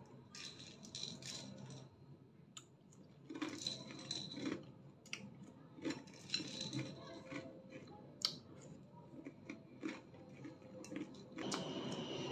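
Close-up eating sounds: chewing and mouth noises in irregular bursts, with small clicks and clinks of a plastic spoon against a yogurt cup. The sounds get denser and louder near the end.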